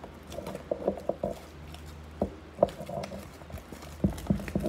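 Cardboard trading-card blaster boxes and foil packs being handled on a table: scattered taps and knocks, one sharp knock a little past halfway and a quicker run of them near the end.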